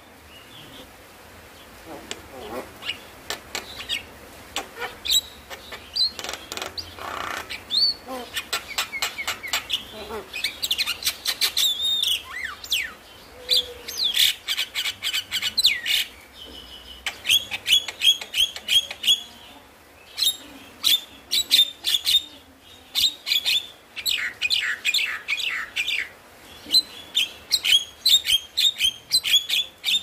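Javan myna singing: fast runs of harsh clicks and chattering notes mixed with whistled gliding notes, in phrases with short breaks between them.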